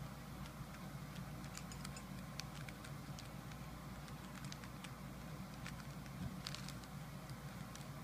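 Plastic Rubik's Cube being turned by hand: faint, irregular clicks and clacks of its layers snapping round, over a steady low background hum.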